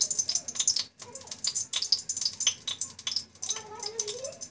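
Steel spoon clinking and scraping against the stainless-steel mixer-grinder jar as it scoops through thick ground leaf paste: a quick, irregular run of small metallic ticks and scrapes.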